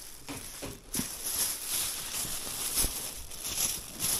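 Rustling and light handling noise: scattered crinkling with a few soft knocks.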